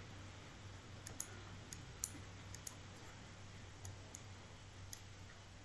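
Faint, irregular clicks of a stylus pen tapping and lifting on a tablet screen while words are handwritten, over a low steady hum.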